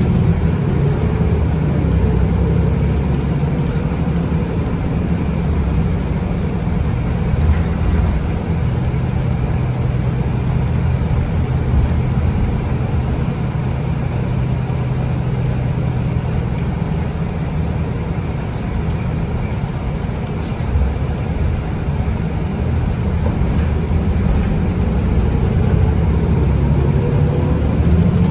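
The Cummins ISB 6.7 diesel of a BCI Citirider 12 bus running steadily under way, with tyre and road noise, heard from inside the passenger cabin.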